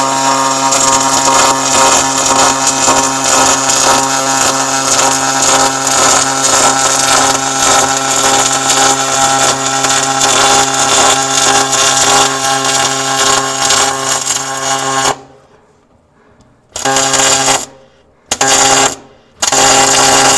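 MIG welding arc on 3/16-inch aluminum plate: a continuous, loud buzzing hiss with a steady hum running for about fifteen seconds as a bead is laid. It stops, and then three short bursts follow near the end, as the trigger is let off and a small burn-through in the unbacked seam is filled with tack-like welds.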